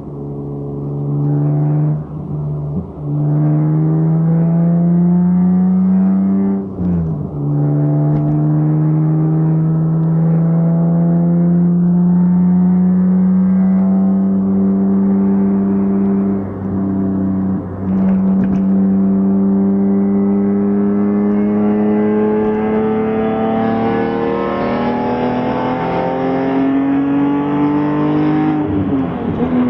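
BMW M3 E46's 3.2-litre straight-six with a Gruppe M titanium exhaust pulling hard under acceleration, the engine note climbing slowly as the revs build. The revs drop sharply at a gear change about seven seconds in, then climb again until another shift near the end.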